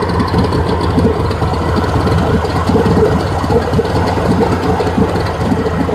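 1987 Suzuki DT55 three-cylinder two-stroke outboard motor idling steadily.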